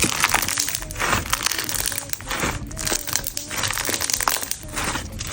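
Crunchy slime being squished and worked by hand, giving dense, irregular crackling and crunching with louder clusters every second or so.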